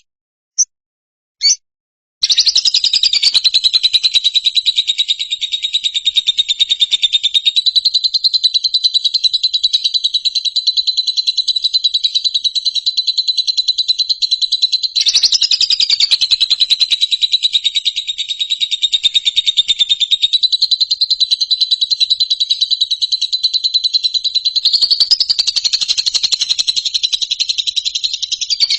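A high, very rapidly pulsing trill, held without a break and wavering slightly in pitch, preceded by a few short separate chirps in the first second or so.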